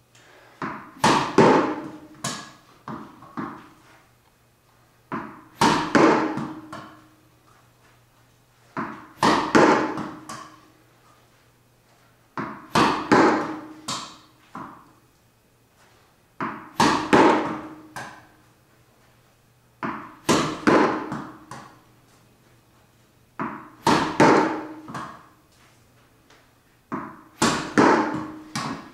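Tennis ball struck with a racket in repeated forehands, eight times at about one every three and a half seconds. Each hit is followed by a few smaller knocks as the ball bounces off the walls and floor, with an echo.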